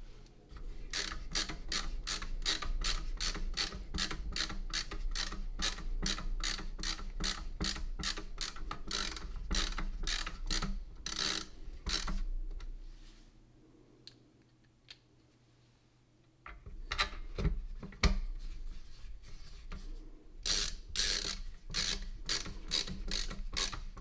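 Ratcheting screwdriver clicking in quick, even strokes while driving screws into a mini PC's bottom cover. The clicking stops for a few seconds around the middle, then starts again.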